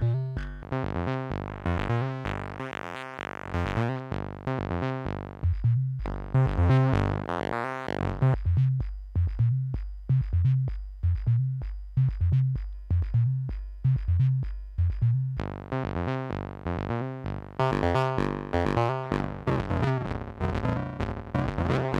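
Twisted Electrons Acid8 MKII 8-bit acid synth playing a repeating sequenced pattern of short bass notes, its pulse width being modulated. In the second half its Crush effect is turned in, and reducing the sample rate makes the notes gritty and aliased.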